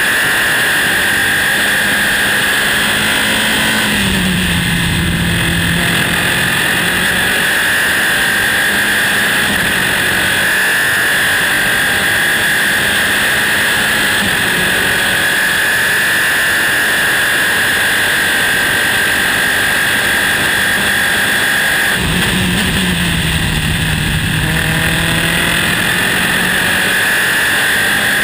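Formula 3 Dallara-Volkswagen race car's four-cylinder engine, heard onboard, running flat out at high revs over wind and road noise. The pitch holds nearly steady, with two short dips that climb back again, one about four seconds in and one about six seconds before the end.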